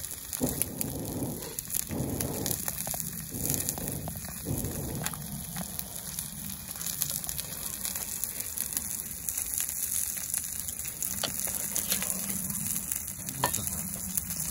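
Beef steak sizzling on a thick iron griddle plate over a wood campfire, with garlic frying in oil in a small pan beside it. A steady sizzle with many fine crackles.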